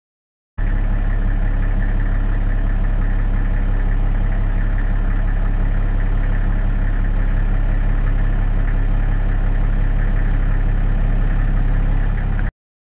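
A steady low engine hum, as of an engine idling, with faint short falling chirps high above it about once a second. It starts and stops abruptly.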